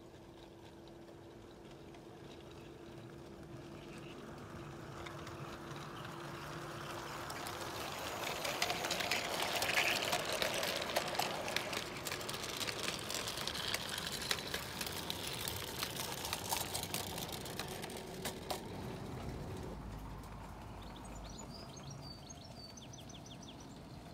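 O gauge model goods train running past on garden track, its wheels clicking over the rail joints, growing louder to a peak about ten seconds in and then fading as the wagons go by. A few bird chirps near the end.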